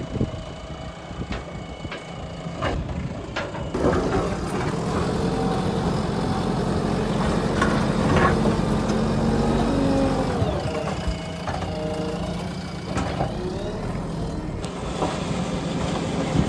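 Backhoe loader engine running under working load, growing louder about four seconds in and rising and falling in pitch later on, with a few sharp knocks near the start.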